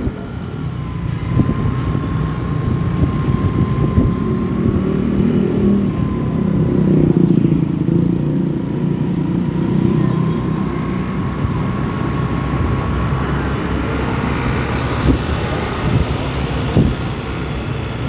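Road traffic: the low engine rumble of passing vehicles, swelling about seven seconds in and easing off again.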